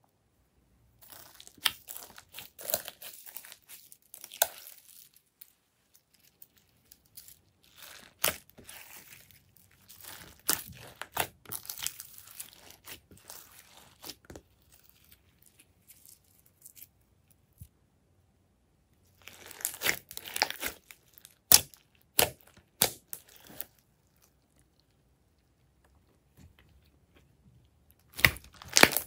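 Glossy slime mixed with glitter, sequins and beads being squished, folded and stretched by hand: sticky crackling with sharp pops, in several bursts with quiet pauses between them.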